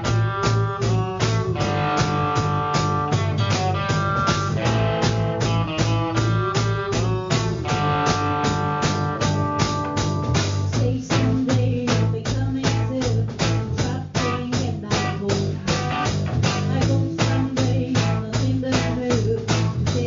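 Live blues-rock band playing with a steady drum-kit beat under electric guitars and bass, the guitars holding ringing chords. A woman's singing voice comes in about halfway through.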